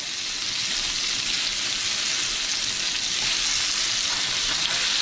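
Seasoned catfish fillets sizzling steadily in hot olive oil in a skillet over medium-high heat.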